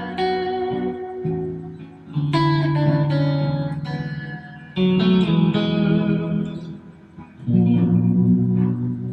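Fender Stratocaster electric guitar playing chords, each struck and left to ring out and fade. A new chord comes every one to three seconds.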